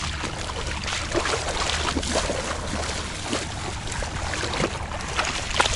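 Shallow seawater sloshing and splashing in many small, irregular bursts, as of someone wading through it, over a steady low rumble.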